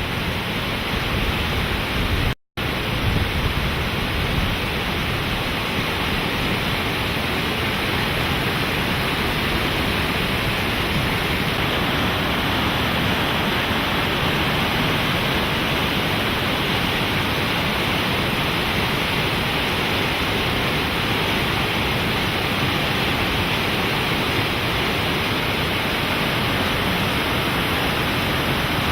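Fast-flowing river water rushing steadily after heavy rain. It is broken once by a very short gap about two and a half seconds in.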